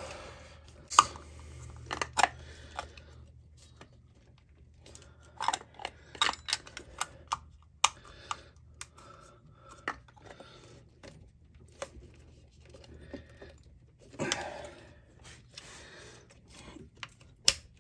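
Scattered clicks and light plastic and metal knocks as a distributor cap is seated on a Mk2 Golf 16V distributor and its metal spring clips are snapped over it, with a brief rustle of handling about two-thirds of the way through.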